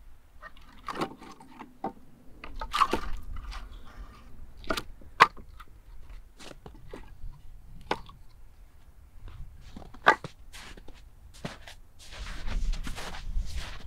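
Split firewood logs knocking together as they are pulled from a stacked woodpile and gathered into an armful: irregular sharp wooden knocks. Near the end, crunching footsteps in snow.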